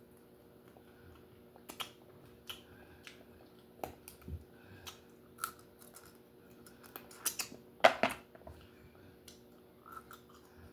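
Scattered sharp clicks and cracks of a cooked lobster's shell being handled and broken apart, with the loudest cluster a little before eight seconds in.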